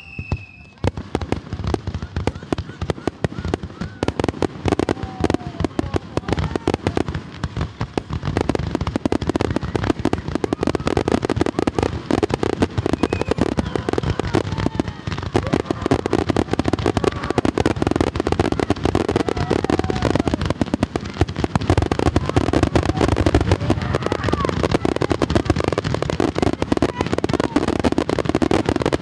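Aerial fireworks going off in a dense, nonstop barrage of rapid bangs and crackles, getting louder and thicker about eight seconds in. A falling whistle fades out right at the start.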